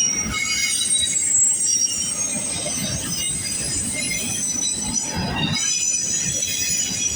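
Freight cars of a long double-stack container train rolling past, with steady rumble and clatter from the wheels and high-pitched wheel squeal: several thin squealing tones sound together throughout.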